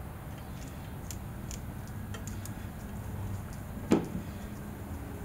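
Faint scattered clicks and ticks of wire leads being handled and twist-on wire connectors being worked by hand. One sharper knock just before four seconds in, as the wire strippers are taken up from the plywood.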